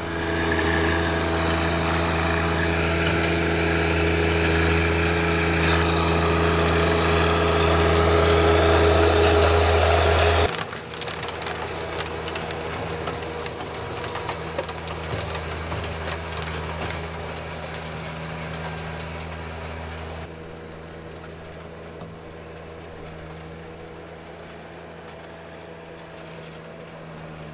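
John Deere 1025R compact tractor's three-cylinder diesel running steadily under load, driving a PTO-powered King Kutter rotary tiller that churns hard clay soil. Loud for about the first ten seconds, then suddenly quieter, with a further drop about two-thirds of the way through.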